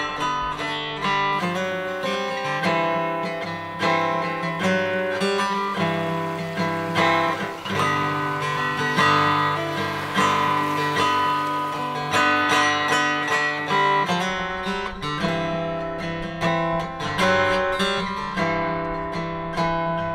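Background music: an acoustic guitar playing plucked notes with some strumming.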